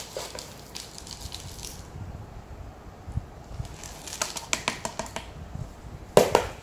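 Dry, gritty potting mix poured from a plastic scoop into a glazed ceramic pot around a replanted succulent cutting, the granules pattering and crackling as gloved hands press it in. A single louder knock comes near the end.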